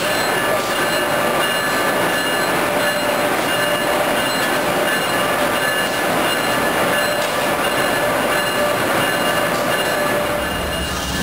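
Amtrak AEM-7AC electric locomotive standing with its equipment running: a steady hiss and rumble with several steady high whining tones.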